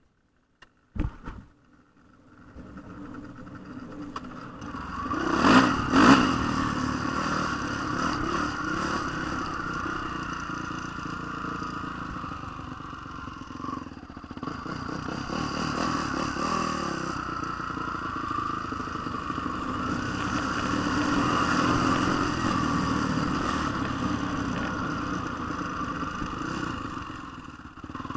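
Honda CRF450 dirt bike's single-cylinder four-stroke engine running while riding over gravel, its loudness rising and falling with the throttle. A few short knocks come first, the engine comes in about two seconds in, and it is briefly at its loudest about five to six seconds in.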